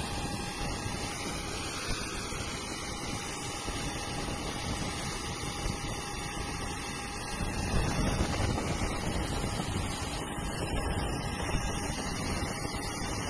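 Steady rushing noise of a rainstorm on a flooded airport apron, with jet airliners taxiing through the floodwater in the distance. It grows louder and deeper about halfway through.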